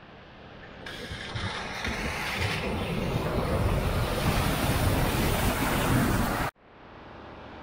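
A heavy tanker lorry ploughing through a flooded ford: water splashing and rushing off its wheels over the rumble of its diesel engine. The sound builds as it comes closer and is loudest just before it cuts off suddenly near the end, giving way to a quieter hiss of wet tyres on the road.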